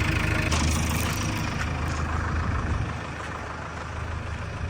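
Heavy diesel engine running steadily with a low drone, easing off and getting quieter about three seconds in.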